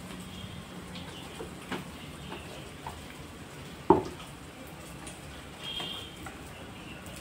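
Cooking at a wood-fired stove: a few small clicks and taps, then about four seconds in a single loud, sharp knock of a utensil or pot against metal.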